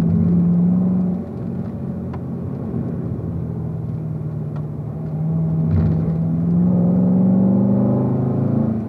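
Corvette V8 heard from inside the cabin, pulling in fourth gear at low revs. It is louder for the first second, eases off, then rises in pitch and volume from about five seconds in as the car accelerates out of the bend.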